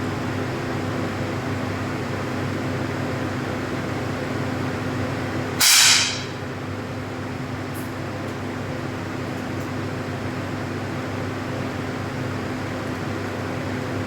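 One 10 m air pistol shot a little before the middle: a single sharp crack that dies away within half a second, over a steady background hum.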